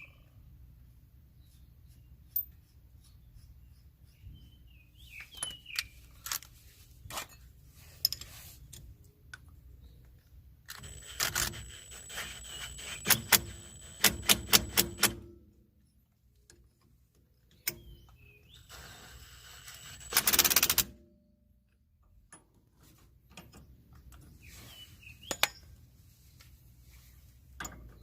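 Tools and metal parts clinking and knocking during hands-on work on the car, with a fast run of clicks around the middle and a short hiss a little later. Birds chirp faintly now and then.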